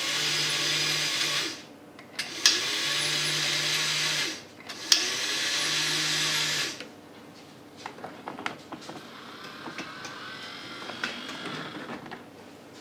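Fleischmann 1780 model railway turntable's electric drive whirring in three runs of about two seconds each, each begun with a sharp click, as the bridge is turned round. From about seven seconds in, the much quieter running of the Mehano 5102 model diesel locomotive's motor as it drives off the turntable.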